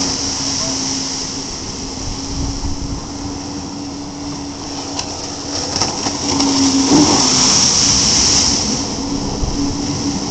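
Jet ski engine running steadily with a constant hum over rushing water and hiss. It grows louder from about six to nine seconds in.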